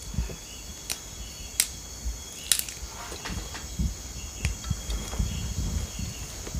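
Crickets and other insects chirring steadily, with scattered sharp clicks and light low knocks every second or so.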